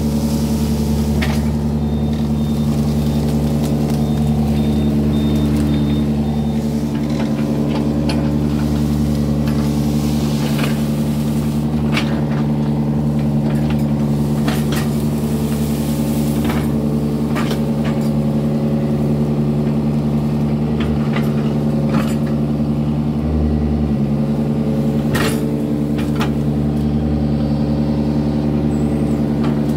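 Yanmar mini excavator's diesel engine running at a steady pitch while digging, with scattered sharp clicks and knocks from the machine.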